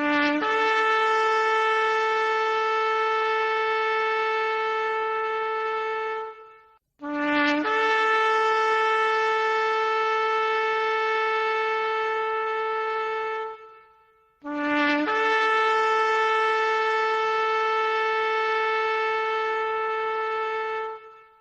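Shofar sounded in three long blasts, each about six seconds. Each opens with a brief lower note that jumps up to a steady held tone, which fades out at the end.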